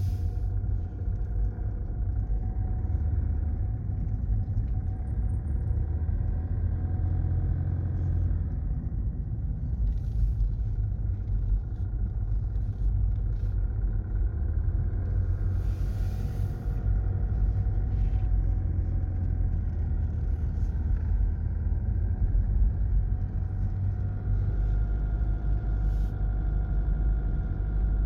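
A 4x4's engine and tyres heard from inside the cabin while driving slowly on a sealed road: a steady low rumble, with a few short hisses here and there.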